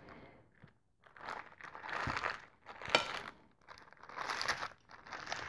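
Plastic cooking bag crinkling as it is cut and peeled off a cooked chicken breast with a knife, in four short bursts with a sharp click about three seconds in.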